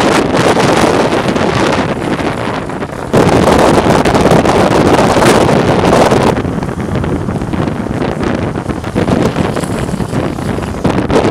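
Wind rushing over the microphone at speed, with the road roar of longboard wheels on asphalt during a fast downhill run. The level jumps sharply about three seconds in and drops again about six seconds in.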